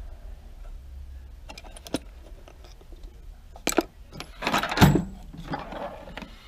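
Loose steel drill bits and machinist tooling clinking and rattling in a tool-chest drawer as they are handled, with sharp clicks at first and a denser clatter and a heavy clunk past the middle as a drawer is pulled open.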